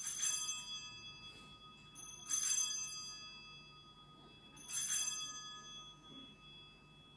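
Altar bell struck three times, about two and a half seconds apart, each stroke ringing on and fading slowly. It marks the elevation of the chalice at the consecration of the Mass.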